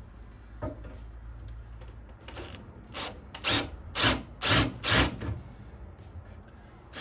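A handheld power tool worked on sheet-metal fender repair, run in about six short bursts, roughly two a second, about three seconds in.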